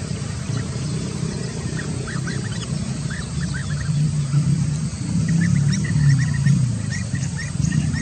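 Blue-throated bee-eaters giving short, quick chirping calls in small clusters, sparse at first and a denser run from about five seconds in, over a steady low rumble.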